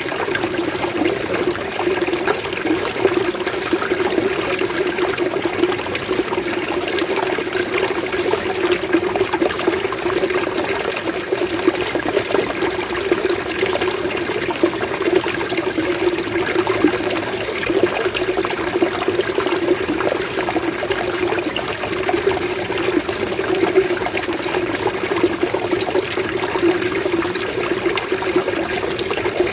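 Running water gurgling steadily, a continuous bubbling flow like a small stream or channel.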